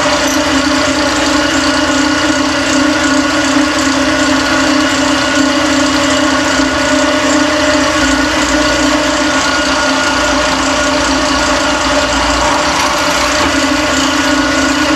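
Drill press motor running steadily with a strong, even hum while drilling the pin hole through a steel tong blank held in a drill press vise.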